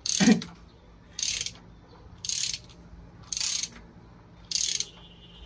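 Socket ratchet wrench clicking in five short bursts about a second apart, each a quick run of pawl clicks as the handle swings back while a motorcycle frame-slider bolt is turned in. The first burst comes with a brief falling squeak.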